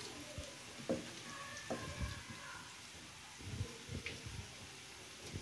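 Kitchen knife scoring a raw chicken drumstick down to the bone: faint wet slicing with a few soft, scattered knocks.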